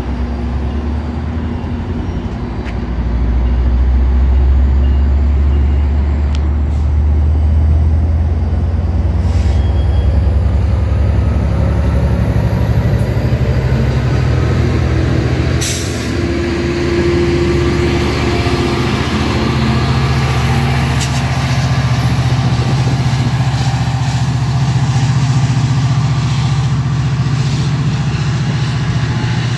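Diesel-hauled commuter train of bilevel coaches moving along the platform, with a deep, steady locomotive engine hum and wheel rumble. The engine note rises about halfway through.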